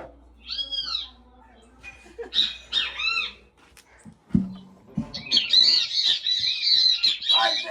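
Great kiskadee (bem-te-vi) calls played from a loudspeaker. Two arching calls come in the first few seconds and a short low thump about four seconds in, then dense high chirping fills the last two seconds or so.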